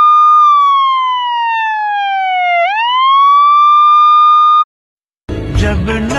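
Police siren: a single tone that holds, slowly falls in pitch, sweeps quickly back up and holds again, then cuts off abruptly about four and a half seconds in. Music starts near the end.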